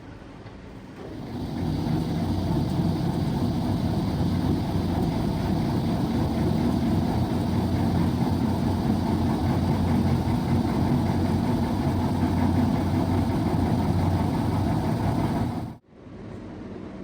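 A motor running steadily with a low hum, building up about a second in and cutting off suddenly near the end.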